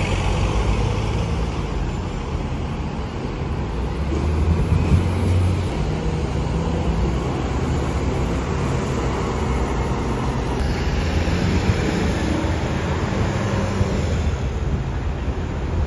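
Road traffic with double-decker buses driving past close by: a steady low engine and tyre rumble that swells about four to five seconds in.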